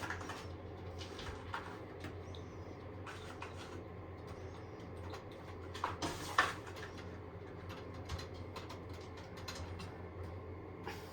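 Scattered light clicks and knocks from handling shelf parts during a bathroom shelf install, with two louder knocks about six seconds in, over a steady low hum.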